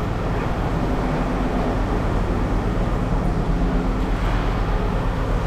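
Heavy equipment engine running steadily, a continuous low rumble with a steady hum.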